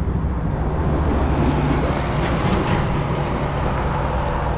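Steady interstate highway traffic, cars and a semi-truck running on the road below.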